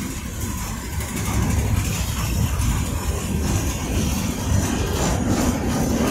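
Freight train cars rolling past close by: a steady low rumble of steel wheels on rail, with repeated clicks of wheels over rail joints in the second half.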